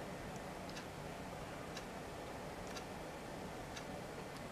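Faint, regular ticks about once a second over quiet room tone.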